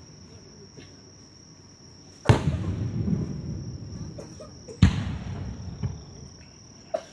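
Aerial fireworks shells bursting, two loud bangs about two and a half seconds apart, each trailing off in a rumbling crackle. A steady high insect trill runs underneath.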